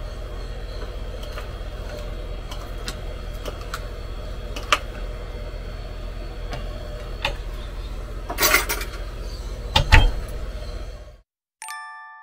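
A metal fork clicking and scraping against a ceramic plate and plastic salad container, with a steady low hum underneath; the clicks bunch up and get louder toward the end. Near the end the sound cuts off and bell-like music notes begin.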